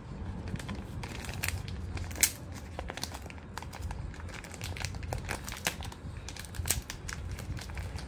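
Thin plastic packaging bag crinkling and crackling as hands pull it open, with two louder snaps of the plastic, about two seconds in and near the end.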